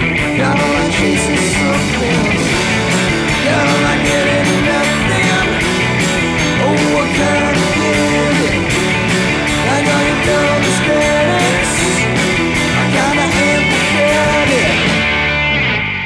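Rock song with drums and electric guitar playing a steady beat, starting to fade out near the end.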